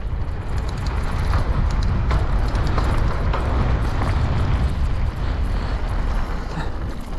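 Wind rushing over the camera microphone as a mountain bike rolls down a dirt trail, with the tyres crunching and scattered small clicks and rattles from the bike.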